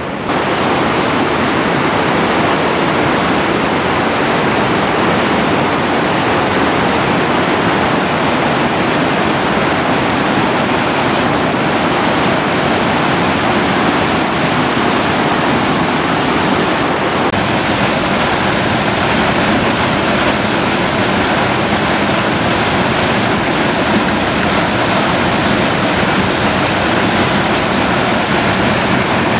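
Whitewater of North St Vrain Creek rushing and cascading over granite boulders: a loud, steady rush of water, its tone shifting slightly a little past halfway through.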